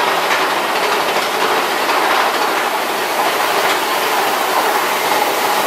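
Big Thunder Mountain Railroad mine-train roller coaster rattling steadily along its track, a loud continuous clatter of wheels on rail.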